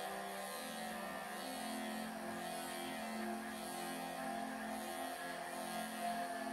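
Electric pet clippers running with a steady hum as they shave through tight, matted pelts of long cat fur.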